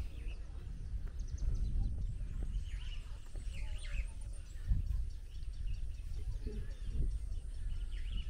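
Wind buffeting the microphone in a steady low rumble, with birds chirping now and then, mostly in the first half.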